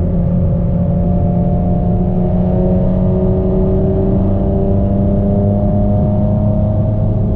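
Inside the cabin of a 2023 Nissan Z Proto, its twin-turbo 3.0-litre V6 drones through a catless downpipe and 3-inch aftermarket exhaust. The car cruises under light throttle, and the engine's pitch climbs slowly and steadily.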